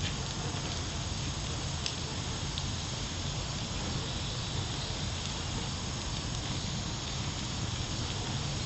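Charcoal fire in a small grill crackling, a few faint sharp pops over a steady hiss and low rumble.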